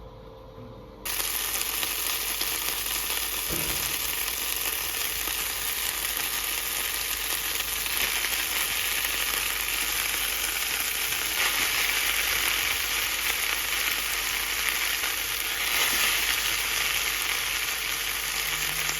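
A cabbage-and-mince dish sizzling steadily in a hot frying pan. The sizzle comes in suddenly about a second in.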